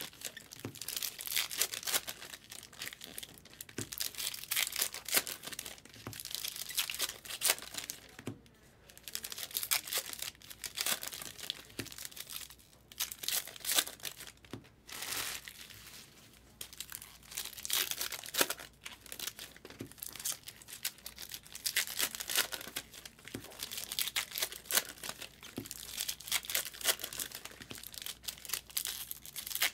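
Packs of 2024 Topps Heritage baseball cards being torn open by hand, the plastic wrappers crinkling and crackling in irregular spurts with brief pauses.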